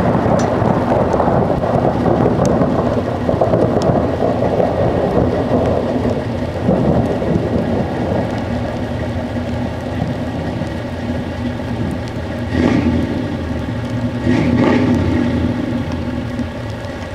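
Rain falling steadily with a rumble of thunder, loudest over the first few seconds, and two brief louder swells near the end.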